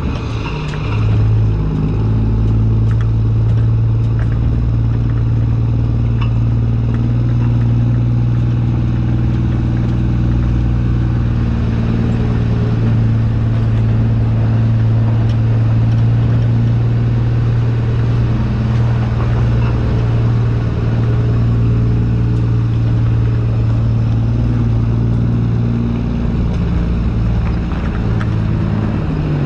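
Straight-piped Kenworth C500's diesel engine pulling a loaded trailer at low speed: a steady, deep drone that dips briefly near the start and then holds even, heard from the back of the trailer.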